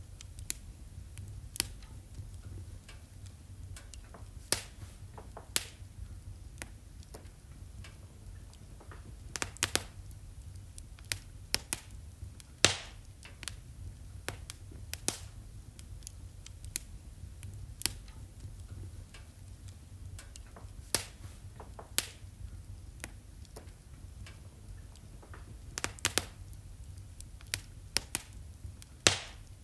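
Wood fire in a fireplace crackling, with irregular sharp pops over a low steady rumble. The loudest pop comes about halfway through.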